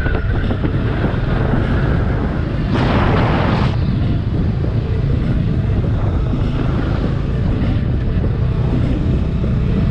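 Motorcycle running steadily on the move, its engine rumble mixed with wind on the microphone. A brief rush of hiss about three seconds in.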